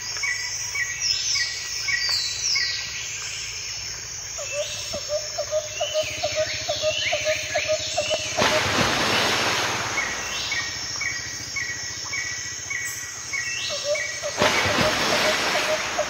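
Dusk chorus of birds and insects: series of short repeated bird chirps and falling whistles over a steady high insect drone, with a faster repeated call joining in twice. Two brief rushes of noise, about halfway through and near the end, are the loudest moments.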